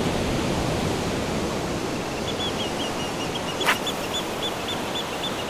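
Steady rushing noise of wind and water, with a faint high chirping repeating about three times a second from about two seconds in and a single sharp click midway.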